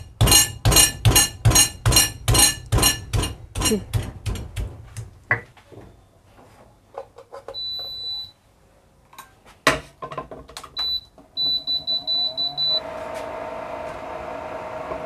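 Rapid, even strikes of a kitchen utensil, about three a second for some five seconds, each with a ringing clink, as ginger is worked for sambal. Later a single high electronic beep and then a quick run of short beeps from a kitchen appliance's buttons, after which a steady appliance hum starts near the end.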